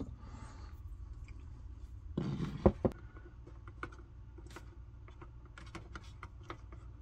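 Small scattered clicks and light scraping of a screwdriver turning Phillips screws and handling parts inside the plastic base of an Instant Pot Duo, with a short rustle and two sharper clicks about two and a half seconds in, over a low steady hum.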